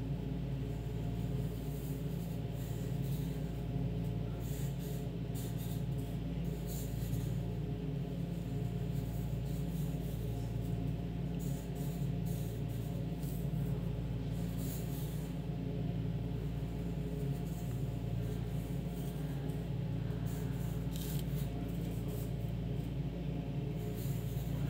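Graphite pencil scratching on paper in short, irregular strokes, over a loud steady low hum.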